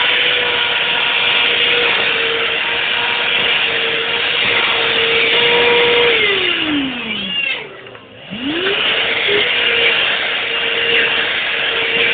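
Dyson cordless vacuum cleaner running with a steady high whine; about six seconds in the motor winds down to a brief stop, then spins straight back up to full speed and keeps running.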